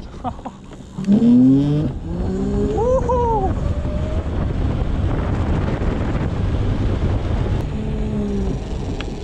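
Wind rushing over the microphone and road noise on a fast electric-bicycle ride, with a few rising and falling pitched sounds in the first three seconds.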